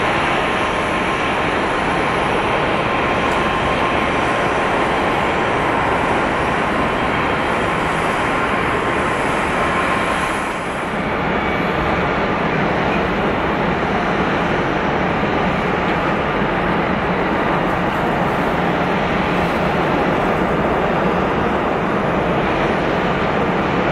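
Jet airliner engines running, a loud steady roar with a thin high whine over it. About ten and a half seconds in the sound changes abruptly and the whine gives way to a lower hum under the roar.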